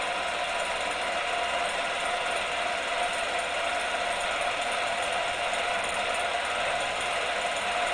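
Film projector running: a steady mechanical clatter of film being drawn through the mechanism, with a constant tone underneath.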